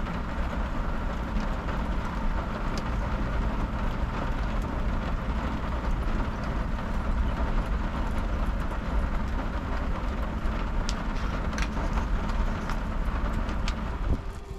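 Portable air conditioner running, a steady fan and compressor hum with a low drone, with a few faint clicks from handling a bottle and glass.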